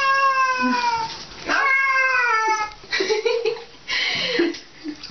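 Domestic cat yowling while being carried to a bath: two long, drawn-out meows, each falling in pitch, then shorter, rougher cries.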